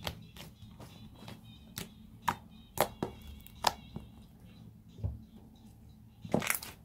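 Fingers poking, pressing and pulling a lump of slime on a tabletop, giving irregular sharp clicks and pops, with a louder cluster near the end.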